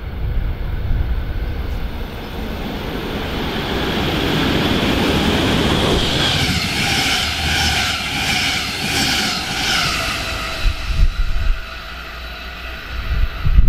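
A DB Class 146 electric locomotive hauling double-deck coaches passes at speed. The rumble of wheels on rail builds to a peak with a rhythmic clatter over the track, and a whine from the locomotive sinks slightly in pitch as it goes by. The sound then fades, with low thumps of wind on the microphone near the end.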